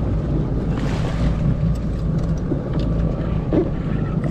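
Jet ski engine running with a steady low hum, with wind buffeting the microphone and choppy water against the hull.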